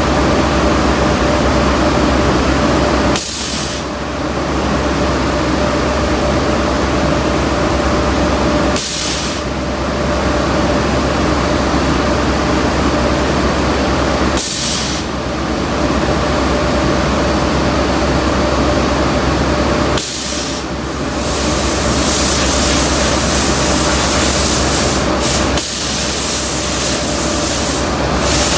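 Automatic powder coating booth running: a steady hiss of air and powder from banks of automatic spray guns over a constant hum. Short sharp bursts of air hiss cut in about every five to six seconds.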